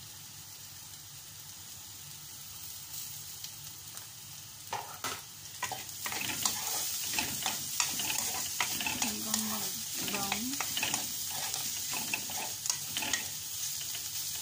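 Chopped onion, garlic and ginger sizzling as they fry in oil in a pan. A utensil stirs and scrapes through them from about five seconds in, and the sound gets louder from there.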